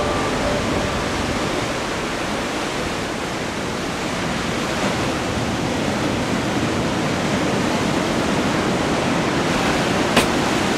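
Breaking ocean surf heard from the shore: a steady, even wash of noise with no let-up. A single sharp click comes near the end.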